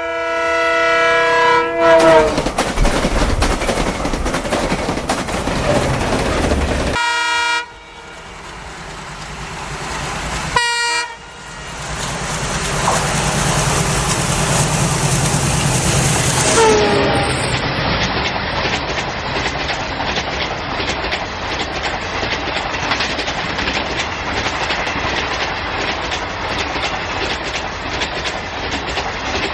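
Toy trains running fast on plastic track, a steady loud rattle of motor and wheels clattering over the track joints. A train horn sounds for about two seconds at the start, dropping in pitch as it ends, and shorter horn blasts come about a third of the way in.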